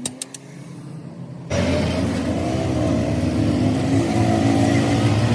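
Truck's diesel engine running, coming in suddenly and loudly about one and a half seconds in, with its pitch wavering and rising a little; faint, evenly spaced clicks come before it.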